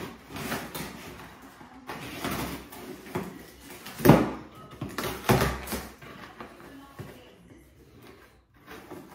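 Cardboard shipping box being handled and opened by hand: scuffing and rustling, with a few loud, sharp noises about four seconds in and again a little over a second later.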